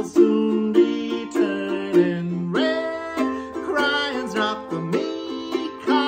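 Ukulele strummed in chords, with a man singing over it.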